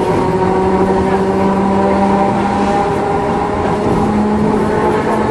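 A streetcar running on its track: the electric traction motors and gears give a steady whine that slowly rises in pitch as the tram gathers speed, over a constant rumble of wheels on rail.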